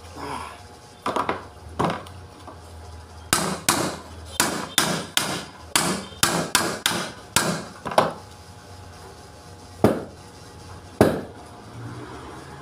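Repeated sharp blows on a forklift alternator's metal housing: a few at first, then a quick run of about a dozen, two or three a second, then two single strikes near the end.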